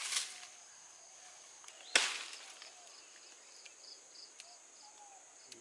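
A machete chopping into a cinnamon stem: one sharp strike about two seconds in, with a smaller cut or rustle at the start. Insects chirp steadily in the background throughout.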